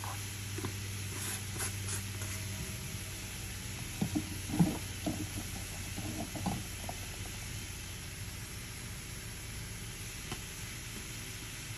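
Ground meat sizzling faintly in a nonstick skillet as it starts to cook, a steady hiss. About four seconds in comes a short run of light knocks and clatters against the pan, the loudest a little after.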